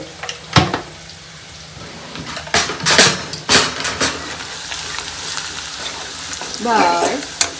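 Garlic, turmeric and chilli masala sizzling in hot oil in a steel kadhai during a tempering, with a handful of sharp metal clinks of a spoon against the pan and spice jars, then a spoon stirring through the mixture.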